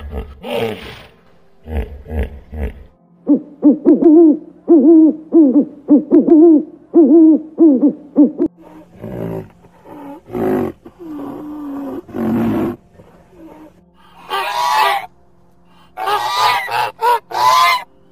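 Hippopotamus calls: low grunts, then a run of about ten rhythmic deep honks, followed by a few separate calls. Near the end, a Canada goose honks in bursts.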